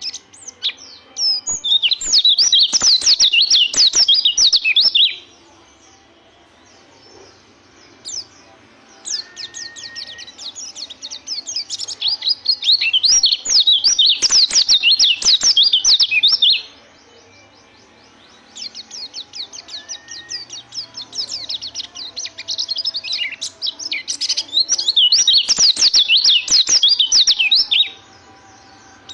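White-eye (pleci) singing in three long runs of rapid, high twittering, with softer chirps in the pauses between them. This is the continuous rolling 'ngerol' song that keepers look for in a young bird.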